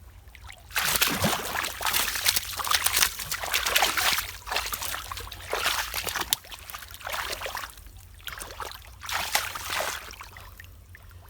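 Muddy water sloshing and splashing in irregular bursts as hands work through it, heaviest in the first few seconds and then in shorter spells.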